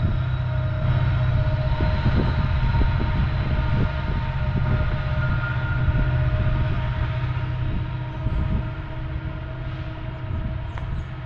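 BNSF diesel locomotives working under load as they push a loaded coal train up a grade: a steady heavy rumble with several steady tones over it, easing off about eight seconds in.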